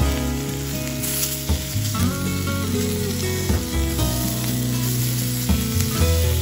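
Beef and vegetable skewers sizzling in a hot cast-iron skillet as they are turned over, the sauce-glazed meat searing, with background music playing.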